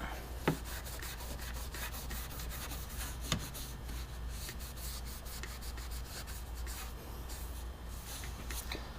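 Faint rubbing and scraping from the door handle parts being handled, with two sharp clicks about half a second and three seconds in, over a low steady hum.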